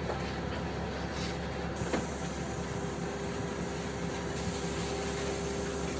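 Inside a LiAZ-5292 city bus standing still with its engine idling: a steady low hum. There is a single click about two seconds in, and shortly after, a steady whine joins and holds.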